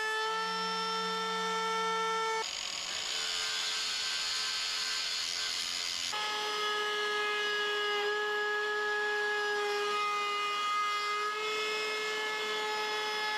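Cordless trim router running at full speed with a steady high whine, its pitch dipping slightly now and then as the bit cuts the wood. For about four seconds a few seconds in, the whine gives way to a rougher, hissing noise.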